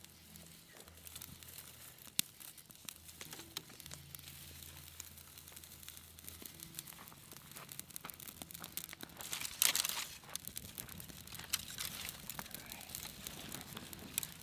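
Dry grass and small twigs crackling and snapping as a campfire catches, with rustling as hands feed in more tinder. A louder rush of crackling comes about ten seconds in.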